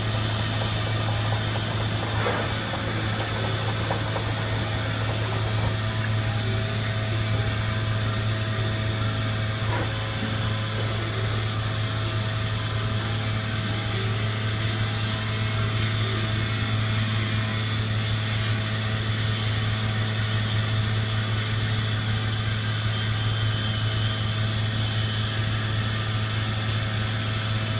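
Hitachi-Seiki HG-400III horizontal machining center milling parts, its spindle and cutter running steadily through the cut with a constant low hum.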